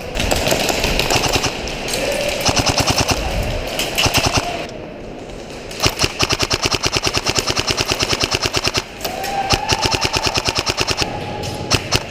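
Custom EMG SAI GRY airsoft electric gun firing rapid full-auto bursts at about 27 rounds a second, a fast buzzing rattle of shots. The bursts are short and come one after another, with a longer burst of nearly three seconds about halfway through.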